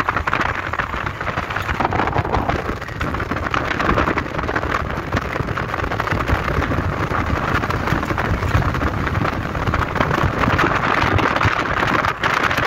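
A car driving along a forest road: a steady rush of wind and tyre-on-road noise through the open window, with no break.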